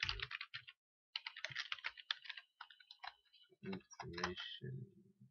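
Computer keyboard typing in quick runs of keystrokes, with a short pause about a second in. A voice speaks a word near the end.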